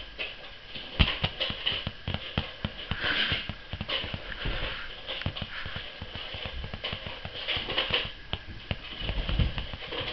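Ragdoll kittens scuffling and pouncing on a sofa: an irregular run of soft thumps and scratches, the sharpest about a second in, with a few short bursts of rustling.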